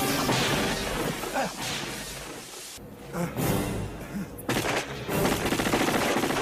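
Heavy automatic gunfire from a film soundtrack, coming in loud bursts, with the film's score underneath.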